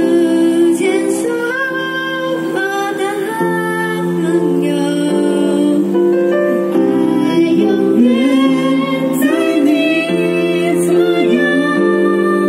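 Young performers singing live into headset microphones over a backing of sustained musical chords, with held notes that change about once a second.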